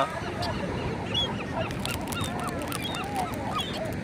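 A flock of birds calling over one another, many short overlapping calls as they crowd around food being thrown to them.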